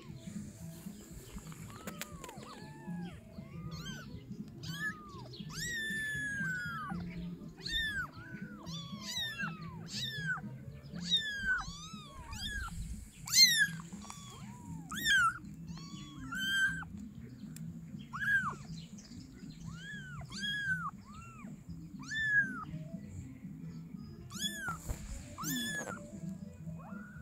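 Young kittens mewing over and over, a run of short, high, rising-and-falling cries about one or two a second, one louder cry a little after halfway.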